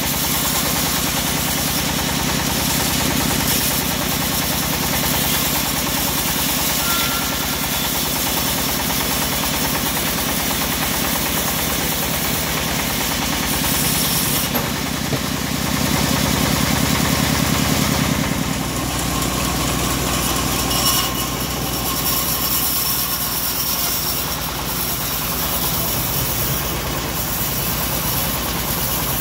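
Homemade engine-driven bandsaw mill running steadily with an even low throb, its band blade sawing through a mahogany log. The low part of the sound shifts about two-thirds of the way through as the cut ends and the saw runs on.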